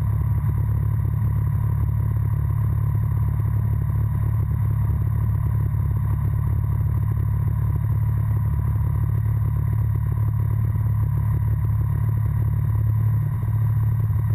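Breezer ultralight aircraft's engine running steadily at low taxi power, a constant low drone.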